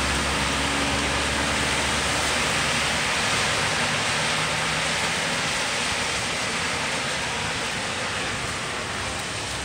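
Steady rushing hiss of rain and tyres on a wet street, with the low engine rumble of a passing vehicle in the first couple of seconds.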